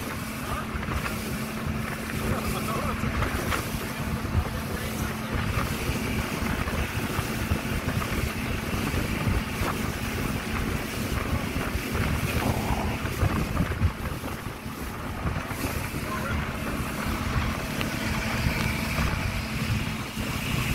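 Engine of a rigid inflatable boat running with a steady hum, under a low rumble of wind buffeting the microphone and water rushing past the hull.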